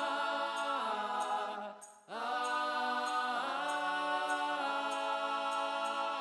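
Wordless closing music of a hymn arrangement: held chords that change every second or two, with a brief break about two seconds in and a faint regular tick above.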